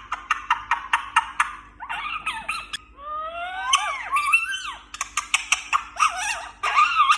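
Indian ringneck parakeet chattering in rapid, clicky bursts. About three seconds in come a few sliding calls that rise and fall in pitch, then the quick chatter returns.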